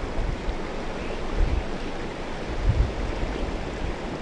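Outdoor wind in a snowfall: a steady rushing noise with gusts buffeting the microphone about one and a half and nearly three seconds in.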